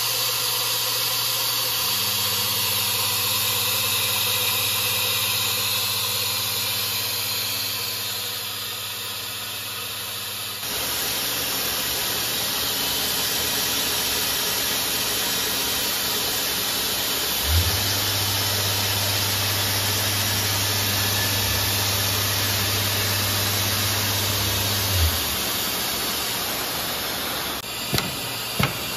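Steady hiss of running machinery with a low electric hum that comes and goes twice. The second hum starts and stops with a click, and there are a few sharp clicks near the end.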